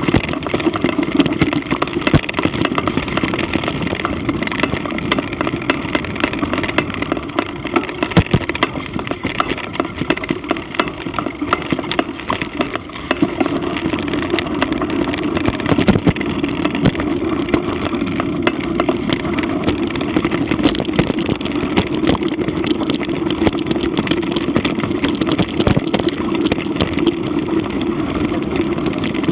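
Mountain bike rolling along a trail: steady tyre noise with many small clicks and rattles from the bike. About halfway through the noise dips briefly, then settles into a steadier rumble as the tyres move from grass onto gravel.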